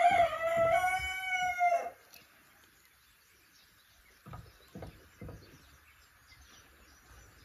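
A rooster crowing, its long drawn-out final note ending about two seconds in. Three soft knocks follow a couple of seconds later.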